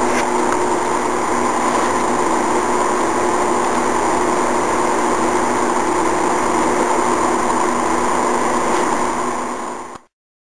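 Steady motor hum with a few fixed whining tones over a hiss, unchanging until it cuts off sharply near the end.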